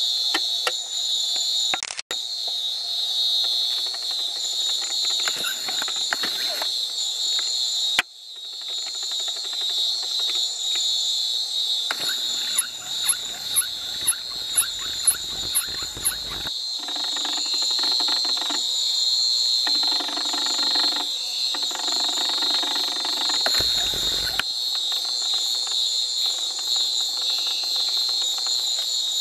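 Night insect chorus in tropical rainforest: a steady, shrill, high-pitched drone. About halfway through, a quick run of about seven sharp, very high chirps comes, followed by a lower pulsing buzz for several seconds.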